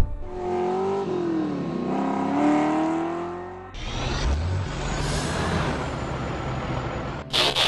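Car engine sound effect: an engine note that dips and then climbs in pitch, cut off abruptly after about three and a half seconds by a lower, rougher engine rumble with hiss, as of a big truck arriving. A few short hissing bursts near the end.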